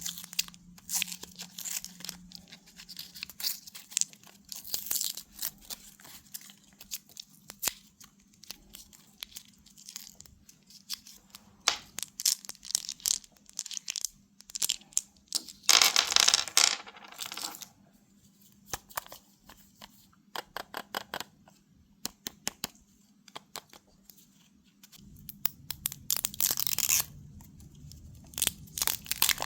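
Crinkly plastic packaging being torn open and handled: irregular crackling and rustling throughout, with a longer, louder tear about halfway through and another near the end.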